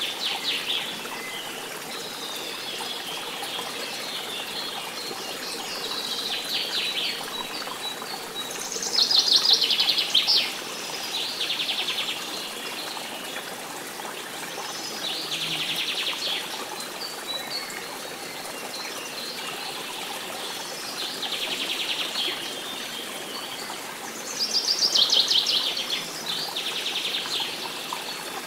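Birds singing in short, rapid trilling phrases that come every few seconds over a steady rush of flowing water, like a nature-sound background.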